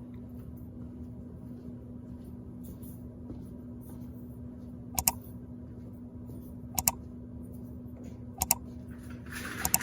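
A steady low mechanical hum with one even tone, broken by three sharp clicks, each a quick double click, spaced about a second and a half apart.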